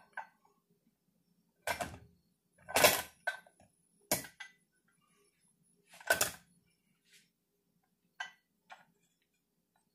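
Metal parts knocking and clanking as a cast brake cover and its shaft are worked onto a compact tractor's rear axle housing: four loud knocks at uneven spacing, the loudest about three seconds in, then two lighter clicks near the end.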